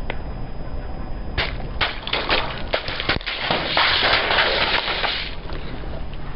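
Liquid-filled plastic candy tubes being crushed under a slowly rolling car tyre: a run of sharp pops and cracks as the tubes burst, then about two seconds of dense crackling and squirting as the rest are flattened. A low rumble from the car runs underneath.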